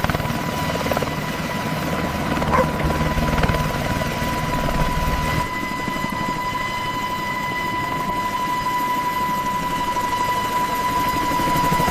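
Helicopter running, its rotor beat under a steady high whine; the deep rumble thins out about five and a half seconds in while the whine carries on.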